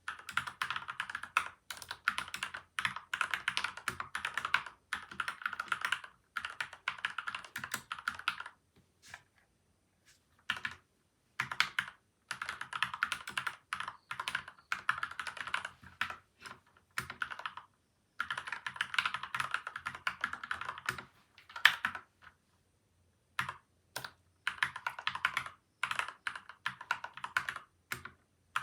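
Fast typing on a modded PCL87 mechanical keyboard with lubed linear switches (Gateron Milky White and Outemu Yellow), taped and foam-dampened, giving muted, soft clicks. It comes in runs of rapid keystrokes broken by a few pauses of a second or two, with a single stray keystroke in each pause.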